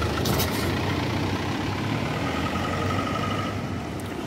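An SUV's engine and tyres on the road as it passes close by and pulls away, the sound easing slightly near the end.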